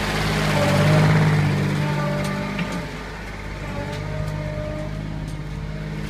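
Thomas 85 skid steer's engine running, swelling louder about a second in, then easing back to a steady run from about three seconds in.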